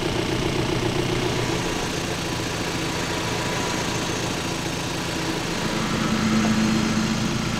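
An engine running steadily at idle, with a second, higher hum joining about six seconds in.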